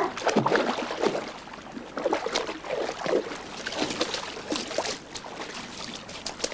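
Brown bear splashing through a shallow river after salmon, its legs and body throwing up water in a run of irregular splashes.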